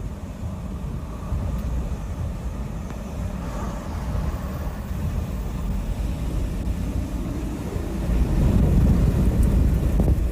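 Strong storm wind rumbling and buffeting on the microphone, a steady low roar that swells louder near the end.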